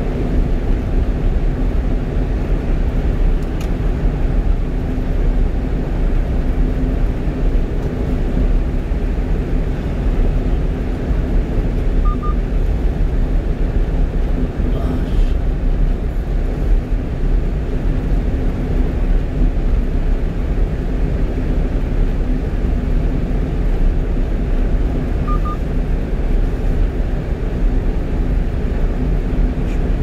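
Steady in-cab drone of a 1-ton truck cruising at highway speed: engine and drivetrain hum with one constant low tone, under tyre and wind noise from the road. Two faint short double beeps come about a third and five-sixths of the way through.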